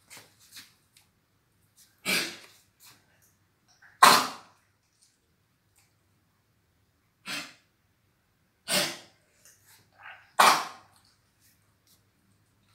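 Dog making short choking sounds, five in all, one to three seconds apart, which the owner puts down to a cold.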